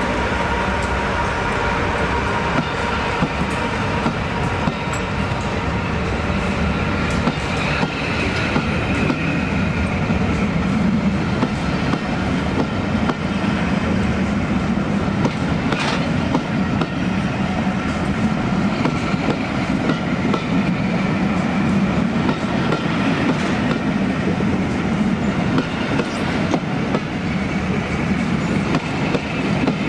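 A loco-hauled passenger train passing close by: a Class 86 electric locomotive followed by a long rake of coaches. The wheels clatter over the rail joints above a steady rumble.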